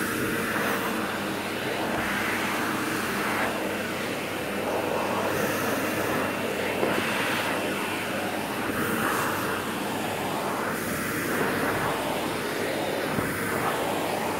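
Vacuum cleaner running steadily as its floor nozzle is drawn over a cat's fur and a rug. The suction sound shifts as the head moves.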